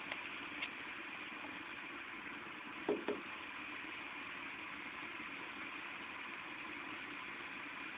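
Steady hiss of falling rain, with two soft knocks close together about three seconds in.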